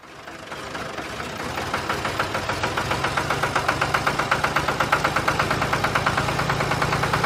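Diesel tractor engine sound effect running with an even, rapid knocking beat of about five or six thuds a second, fading in and growing louder over the first few seconds, then holding steady.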